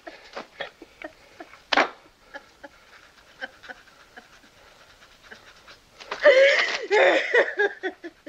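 A woman sobbing and gasping in short breaths, breaking into a loud wailing cry about six seconds in.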